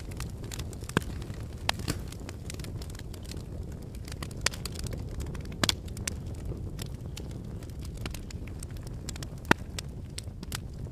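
Fire crackling over a steady low rumble, with scattered sharp pops, the loudest about nine and a half seconds in.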